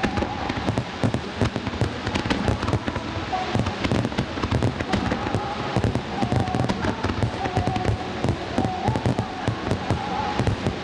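Aerial fireworks going off in rapid, dense succession: a continuous crackle of many sharp bangs and cracks as shells burst and their stars sparkle.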